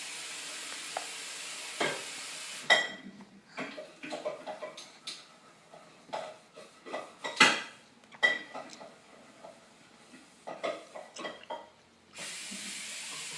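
Irregular knocks and light clinks on a hard surface, starting about three seconds in and running until near the end, a few of them ringing briefly.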